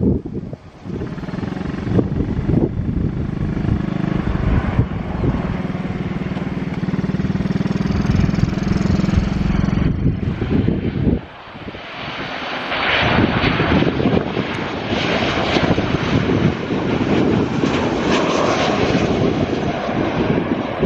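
Airliner engines running: a steady hum for the first ten seconds, then, after a brief dip about eleven seconds in, louder rushing engine noise with gusts of wind buffeting the microphone.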